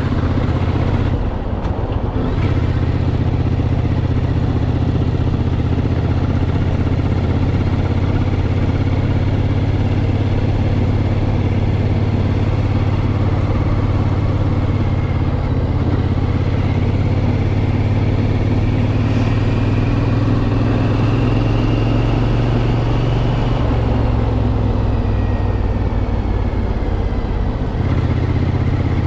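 Triumph Scrambler 900's parallel-twin engine running under way at steady cruising speed. Its note shifts briefly about two seconds in and again near the end.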